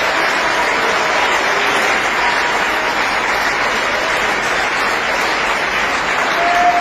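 Applause from a roomful of people clapping, steady and loud.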